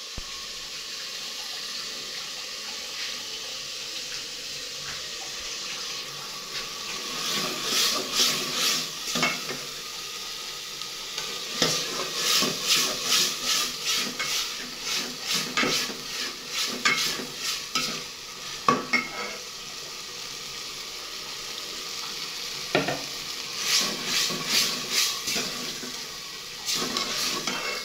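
Food frying in oil in a metal pot, sizzling steadily, while a metal spoon stirs and scrapes against the pot in three spells of quick clinks and scrapes: a few seconds in, through the middle, and near the end.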